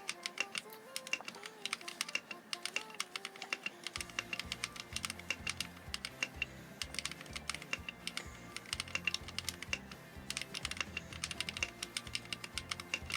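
Rapid typing on a mechanical keyboard with Akko Rose Red linear switches, a quick run of keystroke clacks, over background music whose bass comes in about four seconds in.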